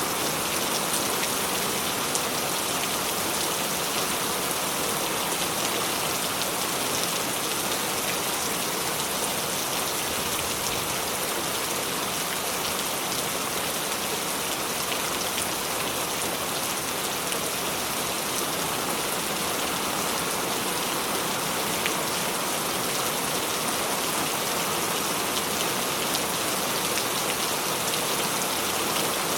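Steady rain falling on a surface, an even hiss with scattered drop ticks and no change in strength.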